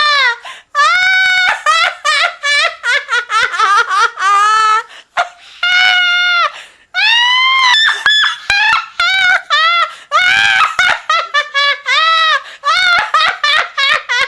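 A witch's cackling laugh sound effect: a high-pitched voice in quick rhythmic bursts of cackling, broken by a few long, drawn-out shrieking cackles.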